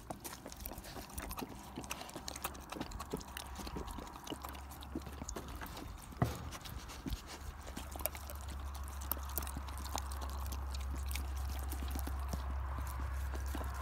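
Irish wolfhound puppy licking and lapping yogurt, a quick irregular run of wet smacking clicks. A low steady rumble grows in the background from about eight seconds in.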